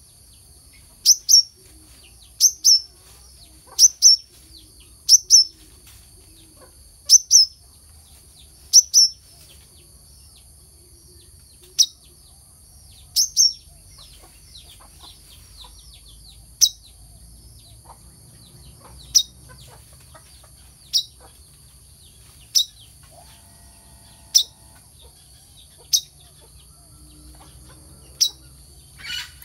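Brown-throated sunbird calling short, sharp, high chips. They come as quick doubled notes about every second and a half at first, then as single chips every two seconds or so, over a steady high hiss.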